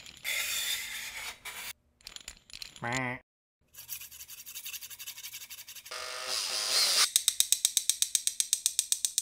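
A string of stop-motion sound effects: scraping and rattling passages cut by short silences, a brief rising, wavering tone about three seconds in, and rapid even ticking, about seven a second, near the end.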